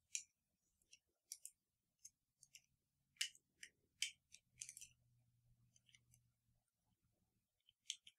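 Faint, scattered light clicks and ticks of small plastic toy pieces being handled, about a dozen, with a faint low hum in the middle.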